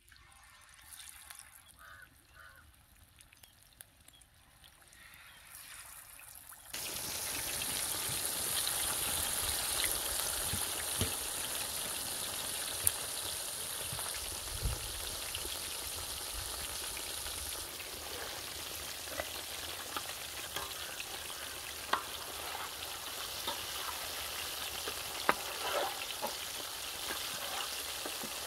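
Baby stingrays deep-frying whole in hot oil. After a few quiet seconds the oil sizzles steadily, starting suddenly, with scattered pops and crackles.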